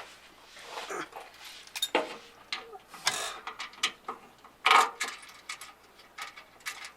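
Irregular metallic clicks and short scrapes of hand tools working a threaded fastener into the bracket on the car's body panel, with one louder scrape about two-thirds of the way through.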